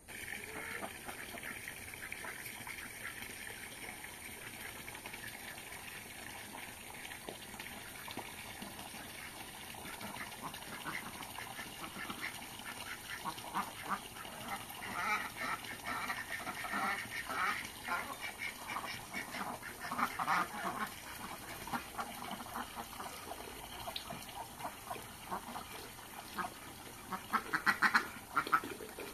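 Domestic ducks quacking around a stone water trough, their calls coming thickest in the middle and in a loud cluster near the end, over water running steadily from a pipe into the trough.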